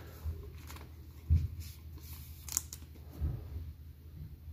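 A trading card slid into a clear plastic penny sleeve: faint plastic rustling with a few soft taps and one brief crisp scrape.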